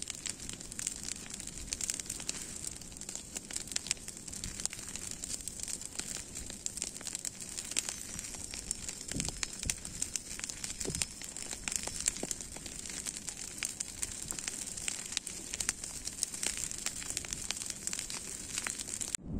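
Bonfire of dry branches and brush crackling, with frequent irregular sharp pops.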